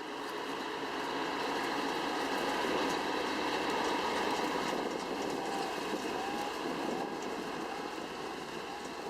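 Farm tractor running steadily with its hay equipment, with a thin steady high whine. It grows louder over the first few seconds, then eases off slightly.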